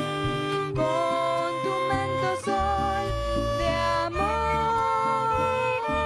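A small string ensemble playing a Venezuelan waltz: violins and cello carry a legato melody with vibrato over plucked guitar chords and a moving bass line.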